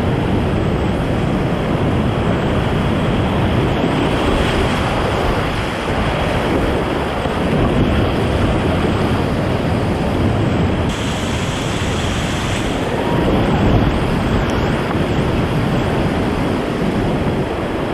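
Rushing whitewater of a creek rapid: a loud, steady rush of water.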